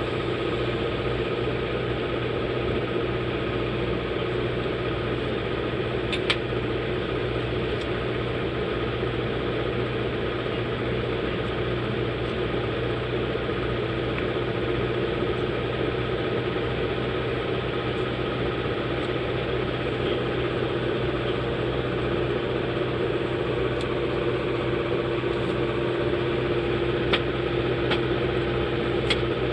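Steady hum of a small fan or blower motor running, with a few light clicks about six seconds in and twice near the end.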